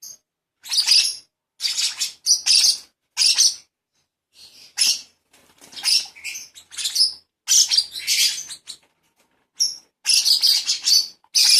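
Hand-reared baby lovebird chirping in repeated bouts of high-pitched chirps, each about half a second to a second long, with short silent gaps between them.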